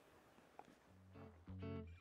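Near silence, then background guitar music fading in about a second in.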